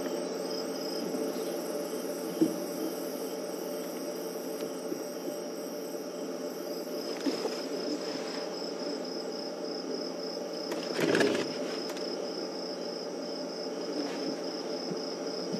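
Crickets chirping steadily at night in an even, pulsing high trill, over a steady low hum. A short, louder burst of noise breaks in about eleven seconds in.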